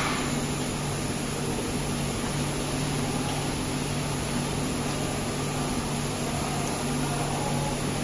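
Steady running hum and hiss of electronics assembly machinery, a low drone under an even hiss, holding level throughout.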